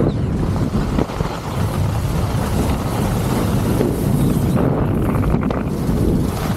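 Wind rushing and buffeting across the camera microphone in a steady, loud noise, with a couple of faint knocks.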